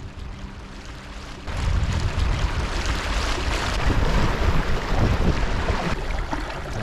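Wind buffeting the microphone and water rushing and splashing past a small inflatable dinghy under way on an electric outboard. It starts suddenly about a second and a half in, after a fainter steady hum.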